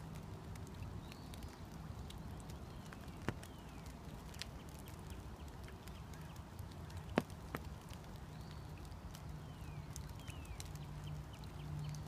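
Light rain falling on a woodland pond: scattered raindrop ticks and drips on the water over a steady low hum. A few short falling chirps come through, with two louder ticks, one about three seconds in and one about seven seconds in.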